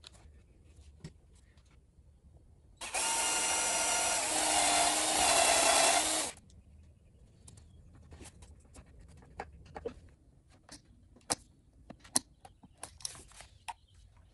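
Cordless drill running once for about three and a half seconds, a little louder toward the end as it works into the wood. Afterwards come scattered light clicks and knocks of tools and wooden parts being handled on the bench.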